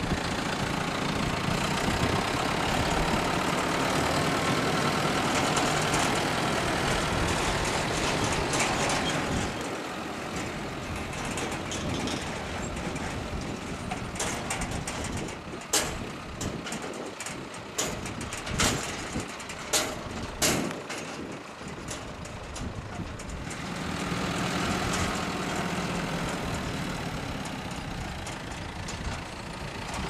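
John Deere 6430 tractor engine running close by, then falling back. In the middle, a handful of sharp, irregular knocks come from the small square baler and bale accumulator at work.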